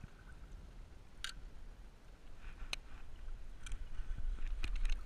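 Wind rumbling on the camera microphone, louder near the end, with a few sharp clicks and taps of a fishing rod and reel being handled.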